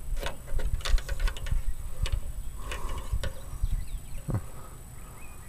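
Clicks and light knocks of a dipstick cap being twisted loose and the dipstick drawn out of the oil fill tube of a Briggs & Stratton 16 HP lawn-tractor engine, over a low rumble.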